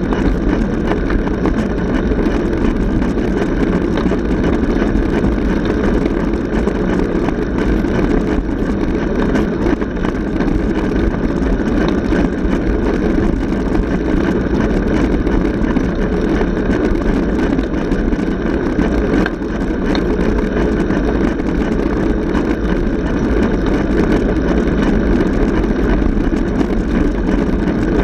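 Steady rush of wind on a bicycle-mounted camera's microphone together with the hum of tyres rolling on asphalt, from a road bicycle ridden at a constant pace.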